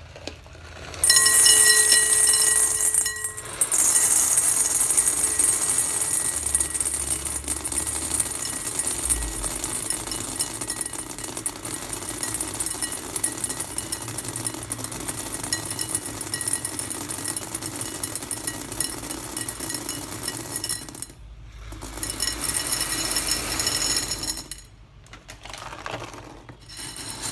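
Whole dried chickpeas poured in a stream into a bowl: a dense rattle of many small hard grains striking the bowl and each other. The pour breaks off briefly about three seconds in, and twice more near the end.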